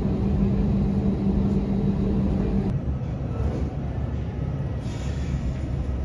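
Airbus A321neo cabin noise during the taxi to the gate: a low rumble with a steady hum over it. The hum cuts off suddenly about three seconds in, leaving the rumble.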